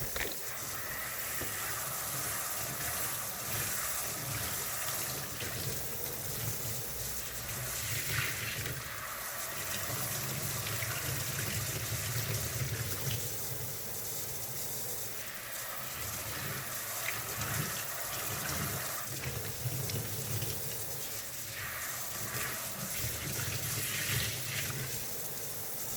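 Tap water running and splashing over a foam vacuum filter as it is rinsed and worked clean in a sink, the gush swelling and easing as the water hits the filter.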